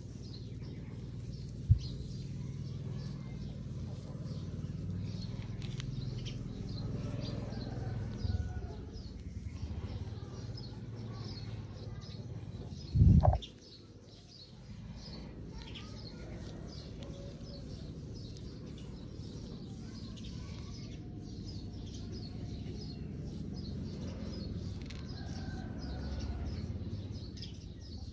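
Background ambience of birds chirping over a steady low rumble, with a sharp knock about two seconds in and a short loud thump about halfway through.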